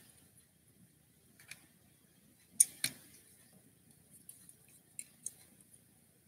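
Sharp plastic clicks and snaps of a Transformers Siege deluxe Impactor figure's joints and parts being twisted and pressed into place during transformation to robot mode, a few scattered clicks with the loudest pair near the middle.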